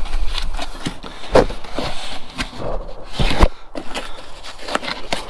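Hands and tools working on a van's cab door panel: irregular knocks, clicks and scrapes. The loudest knocks come about a second and a half in and again just after three seconds.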